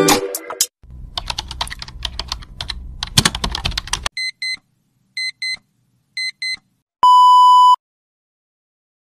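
Intro sound effects: about three seconds of rapid clicking like typing over a low hum, then three quick double beeps a second apart, then one steady single-pitch tone under a second long, cutting off to silence.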